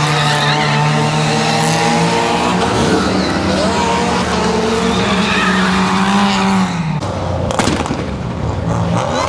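A car doing donuts, its engine held at high revs and its tyres squealing as they spin and slide on the pavement. The revs fall away about seven seconds in.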